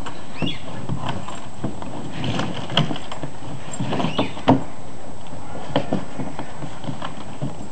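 A Labrador dragging and pushing a rigid plastic kiddie pool over the grass with its mouth: scattered knocks, scrapes and short squeaks of plastic, with a few sharper knocks near the middle.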